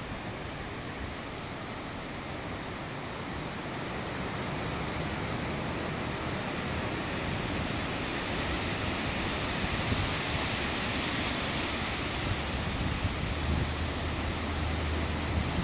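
Storm wind rushing steadily through trees, getting louder a few seconds in, with low rumbling from gusts hitting the phone's microphone near the end.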